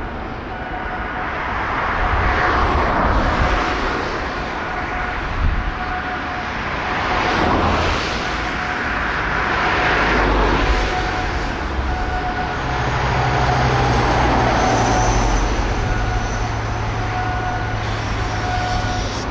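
Road traffic passing, the noise swelling and fading several times, over a faint steady mechanical hum.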